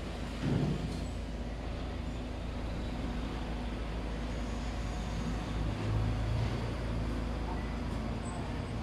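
Construction machinery, an excavator's diesel engine running steadily with a low hum, swelling louder for about a second around six seconds in. A brief low thump about half a second in.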